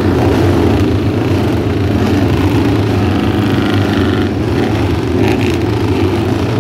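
Several historic racing motorcycle engines running loudly together and being revved, a dense steady drone during a Le Mans-style start.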